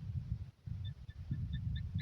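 Steller's sea eagle calling: a series of short, high, clipped notes, about four a second, starting about a second in and growing louder, over a low rumble of wind.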